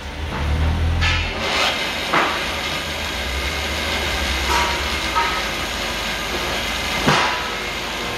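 Huron M66 milling machine running under power feed: a low hum swells as it starts, then a steady mechanical drone, with several clunks from the machine's levers and handwheels, the loudest about seven seconds in.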